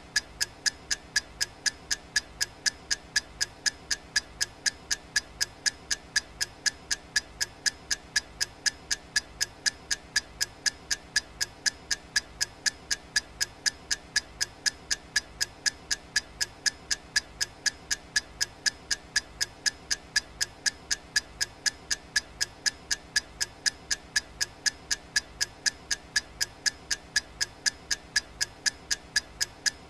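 Clock-ticking sound effect of a countdown timer: sharp, evenly spaced ticks, several a second, keeping a steady rhythm.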